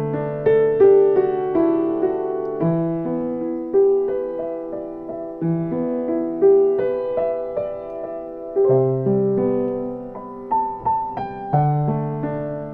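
Slow improvised piano music: sustained chords with a melody above them and low bass notes struck every few seconds, each note ringing and fading.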